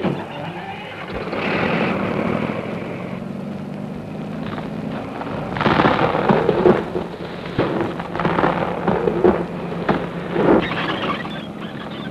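Heavy machinery rumbling with a steady low hum under a loud roar. Bursts of crashing and crackling come from about six to eleven seconds in, as scrub and trees are torn down.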